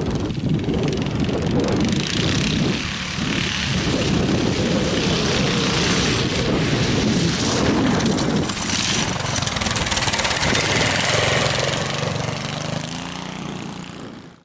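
Go-kart's 11 hp Honda engine running as the kart is driven, with a loud rushing noise over it. The sound fades over the last couple of seconds.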